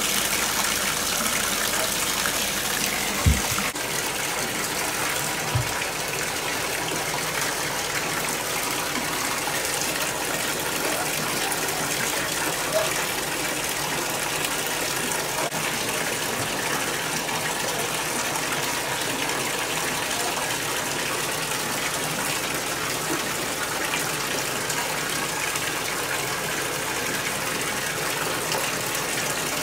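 Water from a bathtub faucet gushing steadily into a filling tub. A few brief knocks sound over it, the loudest about three seconds in.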